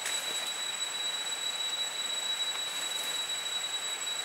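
Steady forest background: an even, high hiss with one constant high-pitched tone running through it, and a few faint ticks.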